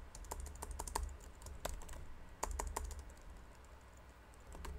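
Typing on a computer keyboard: single keystroke clicks in short, irregular runs of a few keys, as a word is deleted and retyped. A faint, steady low hum sits underneath.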